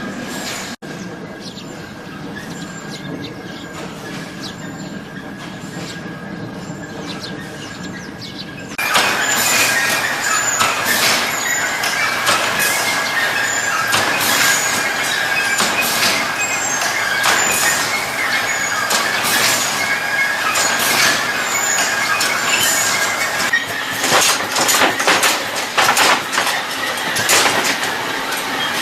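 A machine running steadily with a high squealing tone. About nine seconds in it turns abruptly louder, with a dense clatter of clicks and rattles.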